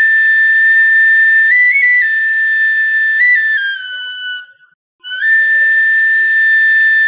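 Background music: a flute-like wind instrument plays long, held high notes with brief ornaments between them. The first phrase fades about four and a half seconds in, and a new held note starts half a second later.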